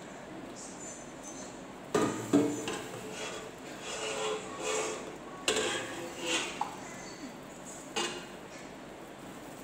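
A stainless steel pot knocking and scraping against a steel popsicle mould as chocolate mix is poured from it, with about four sharp metallic clanks that ring briefly, the first about two seconds in.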